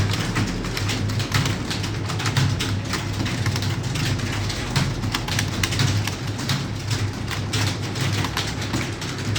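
Fast typing on a computer keyboard: a dense, irregular stream of key clicks with no pauses, over a steady low hum.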